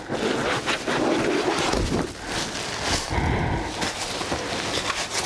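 Wind buffeting the microphone outdoors: a rough rushing noise with low rumbling gusts about two and three seconds in.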